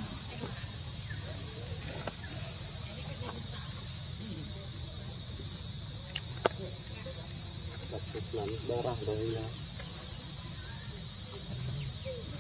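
Steady, high-pitched chorus of insects droning without a break. A faint wavering call rises briefly out of it about eight or nine seconds in.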